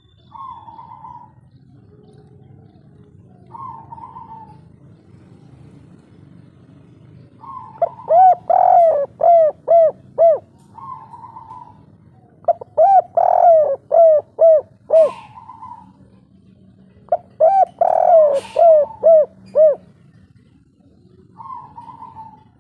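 Spotted dove singing its kuk-3 song. There are three loud bouts of cooing about five seconds apart, each a quick run of falling coos, with softer single coos between them.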